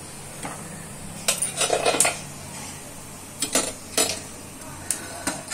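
Wire spider strainer clinking and clattering against a kadhai and a steel plate as fried bhiradi are lifted from the oil and tipped onto the plate: a cluster of metal clatter about a second and a half in, then single clinks near the end.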